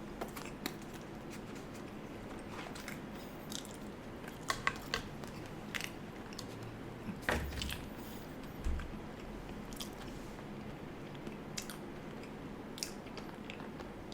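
Close-miked eating sounds: chewing and biting with many scattered small mouth clicks, and a couple of dull low thumps.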